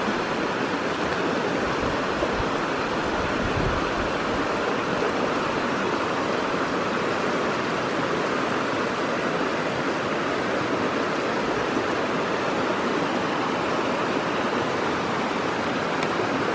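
Shallow rocky mountain stream rushing steadily over riffles and small cascades, an even, unbroken rush of water.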